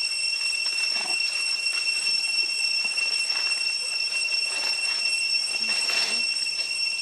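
Steady high-pitched drone of forest insects: one unbroken whine with a second, brighter whine an octave above it. A few soft rustles in dry leaf litter come through underneath.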